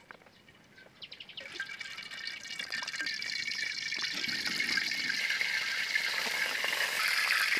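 Hot oil sizzling in a wok as egg-dipped bread slices fry. The sizzle starts about a second and a half in, builds, then holds steady.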